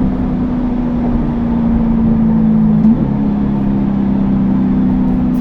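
2020 Chevrolet Corvette C8 Stingray's 6.2-litre V8 pulling under steady load, its note creeping slowly higher, with a brief quick upward blip about three seconds in.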